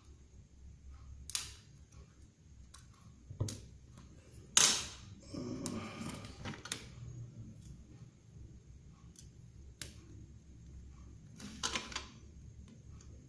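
Scattered sharp clicks and light knocks of hand tools and plastic phone parts being handled while a smartphone is opened up for repair. The loudest click comes about four and a half seconds in, with a quick cluster of clicks near the end.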